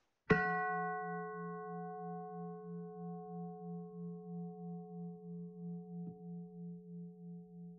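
A single struck bell note, ringing on and slowly fading with a steady wavering pulse about two or three times a second.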